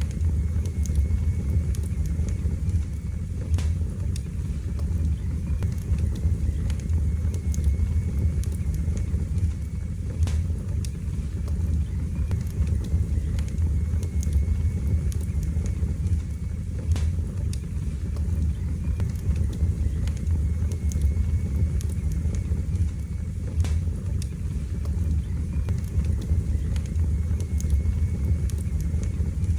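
Wood fire burning in a fireplace: a steady low rush of the flames with scattered sharp crackles and pops from the burning logs.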